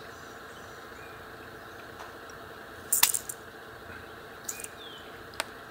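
A few sharp clinks, like small hard objects knocking together: a cluster about three seconds in, the loudest, then a lighter one and a single click near the end, over a steady low background hum.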